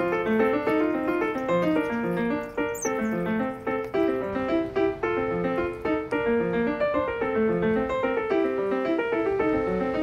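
Background piano music: a continuous run of piano notes and chords.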